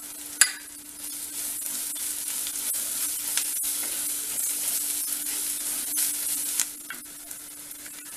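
Onions, green chillies and freshly added chilli and spice powders sizzling in sesame (gingelly) oil in a clay pot, stirred with a wooden spatula, with small scraping ticks. A sharp knock comes about half a second in, and the sizzle is louder from about a second in until near the seven-second mark.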